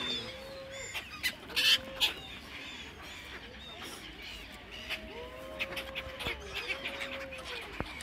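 Birds calling: several drawn-out honking calls, some overlapping in the second half, over fainter high chirps. A few sharp clicks about one and a half to two seconds in are the loudest sounds.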